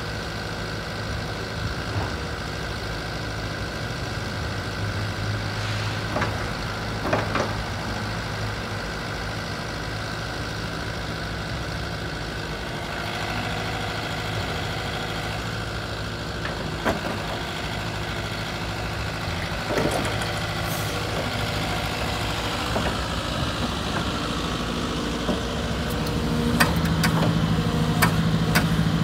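2019 JCB 85Z-1 midi excavator's diesel engine running steadily while the boom and bucket are worked, its note shifting around the middle. A few sharp clicks, and the engine gets louder near the end.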